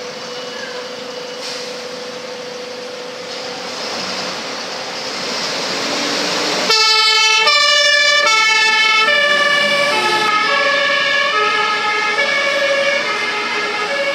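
A Volvo FL fire engine pulls out, its engine noise growing louder over several seconds. About two-thirds of the way in its two-tone siren switches on suddenly, alternating high and low notes a little under once a second.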